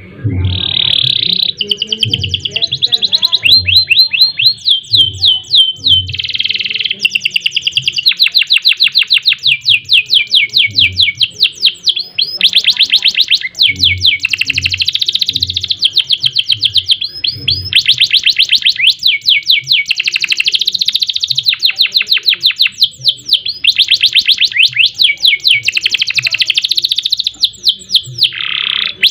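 Domestic canary singing a long, nearly unbroken song of fast trills and rolls, one series of rapidly repeated notes running straight into the next.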